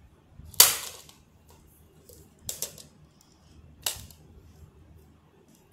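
Hard plastic clacks from a Scorpios Rex action figure being handled on a tiled floor: one loud knock about half a second in, a quick double knock about two and a half seconds in, and a lighter one near four seconds.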